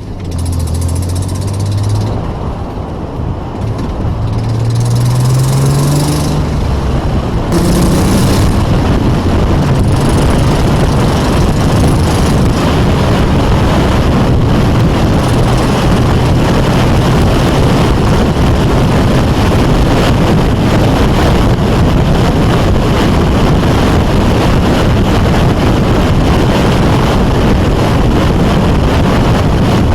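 Car accelerating, its engine note rising in steps through the gears over the first eight seconds or so. After that, loud steady road and wind noise while cruising at speed.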